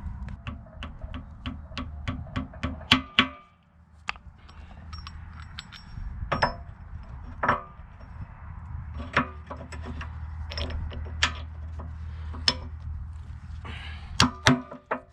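Hammer blows on a steel H&L backhoe bucket tooth as it is fitted over its adapter: a quick run of strikes, about three a second and growing louder, then single ringing metallic clangs every second or two. A low steady hum runs underneath.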